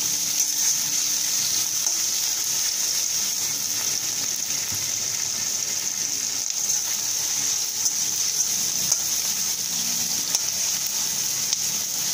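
Sliced onions sizzling steadily in hot oil in a wok, stirred with a metal spatula that clicks now and then against the pan.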